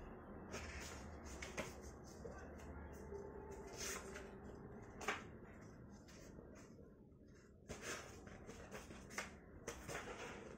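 Faint, irregular rustling and soft taps of book pages being handled and turned.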